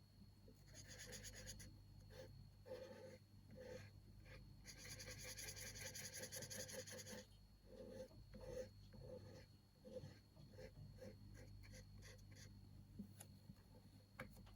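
Faint scratching of a pen tip on paper as a colouring book page is coloured in with quick back-and-forth strokes, coming in spells, the longest and busiest about halfway through.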